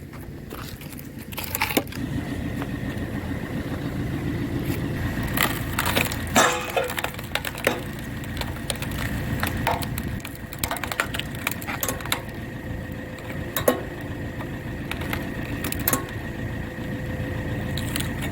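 Tractor-driven hydraulic log splitter forcing a log apart: the wood cracks and splinters again and again, the loudest cracks about six seconds in and near fourteen seconds. A steady tractor engine and hydraulic hum with a thin steady whine runs underneath.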